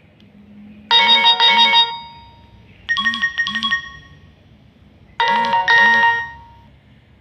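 Nokia 6080 mobile phone playing a ringtone: three short phrases of quick chiming notes, about a second each with a pause between, each fading out briefly.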